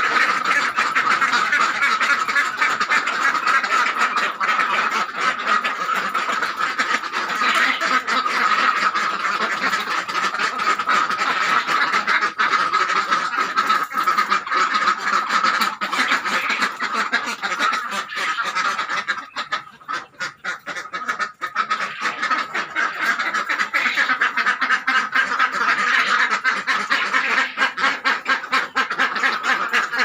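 A shed full of caged laying ducks quacking continuously in a dense, overlapping clamour, with a brief lull about two-thirds of the way through.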